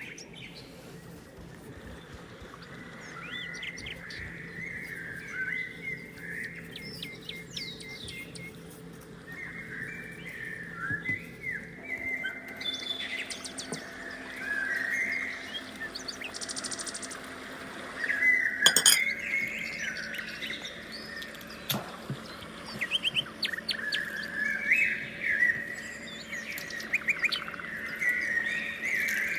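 Small birds chirping and singing, many short calls, with a faint steady hum underneath. Two sharp clicks stand out about two-thirds of the way in.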